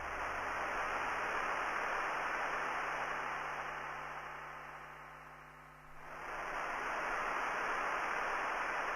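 Synthesized white-noise hiss played as part of an electronic drone-noise piece. It fades down over a few seconds, then swells back in abruptly about six seconds in, over a steady low droning tone.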